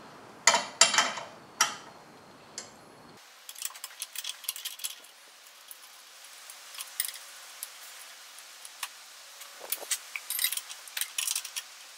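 Metal hand tools clinking and ticking against engine hardware as nuts and wires are undone: a few sharp clinks in the first two seconds, then scattered light clicks.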